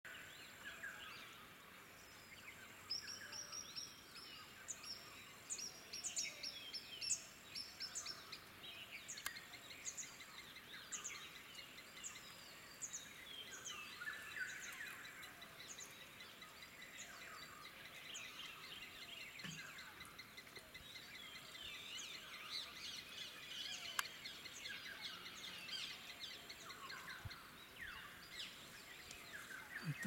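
A chorus of several wild birds chirping and calling, many short overlapping calls, over a steady thin high-pitched tone. A single sharp click about two-thirds of the way through.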